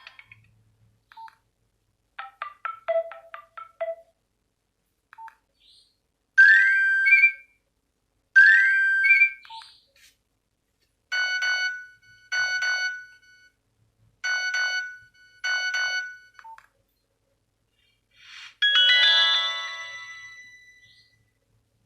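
Nokia 105 phone playing a string of short built-in ringtone and alert melodies, separated by brief gaps. First comes a quick run of short beeping notes. Then two rising chime phrases, then four short repeated chords, and near the end a single chime that rings on and fades.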